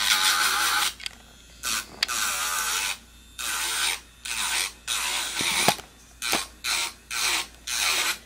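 Rasping strokes of a nail file worked back and forth over a nail, stopping and starting irregularly, one to two strokes a second.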